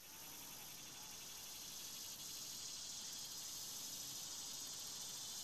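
A steady, high-pitched chorus of insects trilling in rapid pulses, fading in at the start.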